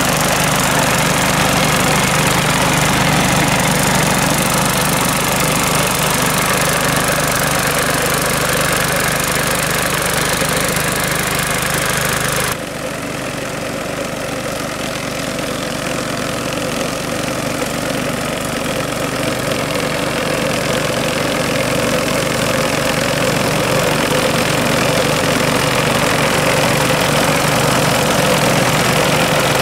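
Small petrol engine of a Rotakt walk-behind mower running steadily as it cuts through tall grass. About twelve seconds in the sound turns suddenly duller and quieter, then grows gradually louder again as the mower comes closer.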